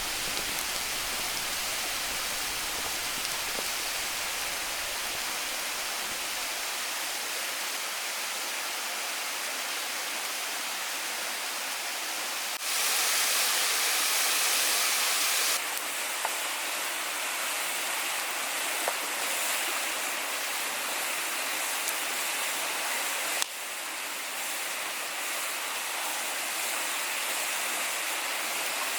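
Steady rushing of a waterfall, an even hiss of falling water. It jumps abruptly louder and hissier about 13 seconds in for some three seconds, then drops back, with another sudden shift near 23 seconds and a few faint clicks.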